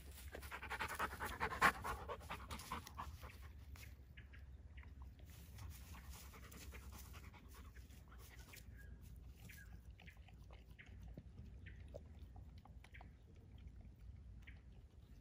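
A Rottweiler panting quickly for the first few seconds, then eating a raw meat mix, with faint scattered wet chewing and licking clicks.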